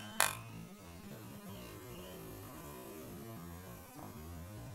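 Faint, low hum of a FlightLine P-38L Lightning RC model's twin electric motors in flight, its pitch wavering, with one sharp click about a quarter second in.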